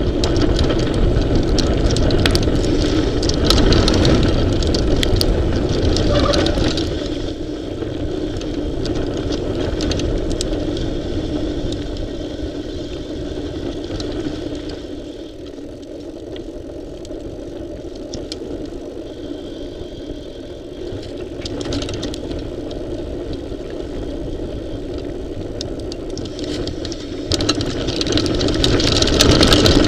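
Mountain bike rolling along a dirt singletrack, heard from a camera mounted over the front tyre: wind rushing over the microphone, the tyre rumbling on the dirt and the bike rattling over bumps. It is louder at the start, quieter in the middle and louder again near the end.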